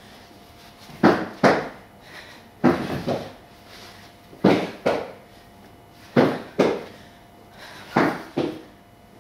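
A slow, steady beat of paired thumps: two knocks about half a second apart, repeating roughly every 1.8 seconds, five times over.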